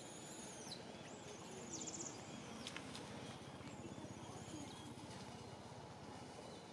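Several short, high-pitched calls that fall in pitch, including a quick trill about two seconds in, over a steady faint crackling rustle.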